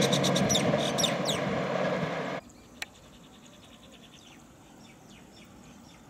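Rumbling running noise of a train rolling away along the track, mixed with bird chirps, which cuts off abruptly about two and a half seconds in. After that there is a quiet outdoor background with faint bird chirps and a single sharp click.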